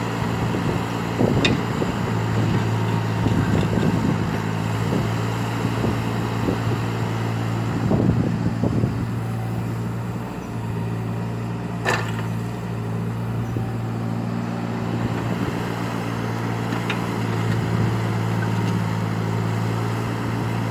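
Eurocomach ES 25 ZT mini excavator's diesel engine running steadily while it works, with a few sharp clanks, the loudest about twelve seconds in.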